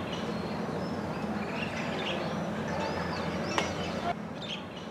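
Outdoor ambience of birds chirping and calling, several short calls, over a steady low background noise, with a single sharp click about three and a half seconds in.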